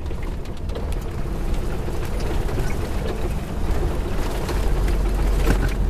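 Heavy truck heard from inside the cab: a steady low engine rumble that grows heavier about four and a half seconds in, with scattered knocks and rattles as it rolls slowly over rough dirt road.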